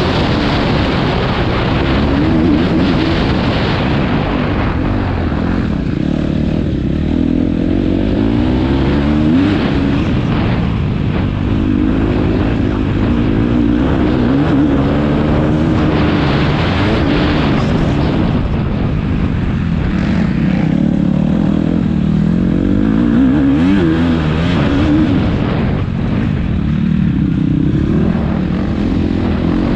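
Motocross bike engines revving up and down again and again, pitch climbing and dropping with throttle and gear changes.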